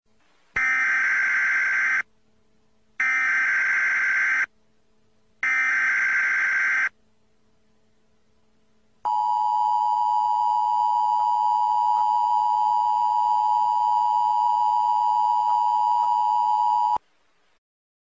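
Emergency Alert System broadcast tones: three short, harsh, screeching data bursts of about a second and a half each with silent gaps, then, about nine seconds in, the steady two-tone attention signal held for about eight seconds before it cuts off.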